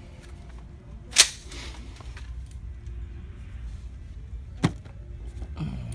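Two sharp knocks over a low steady hum: a loud one about a second in with a brief ring after it, and a smaller one about three and a half seconds later.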